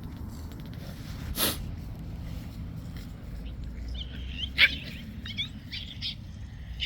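Micro bully puppies in rough play giving short high yips and whines, mostly in the second half, with a sharp sound about a second and a half in and a louder one just past the middle.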